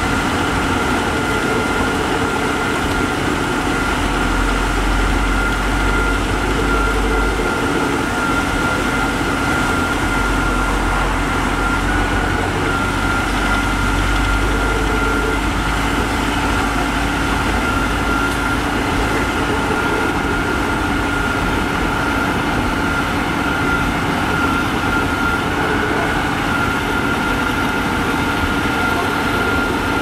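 Heavy diesel engines of road-paving machinery running steadily, with a steady high whine throughout. A deep low rumble comes in twice, first for a few seconds and then for about ten.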